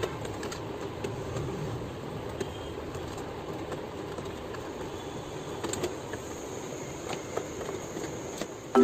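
Steady background rumble and hiss with a few faint clicks and taps.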